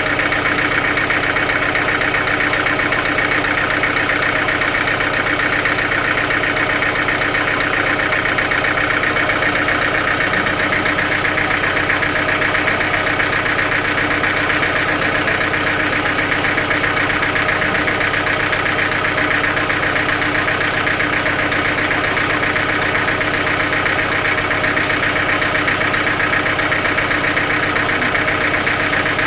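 Sawmill machinery running steadily, an unbroken engine-like drone.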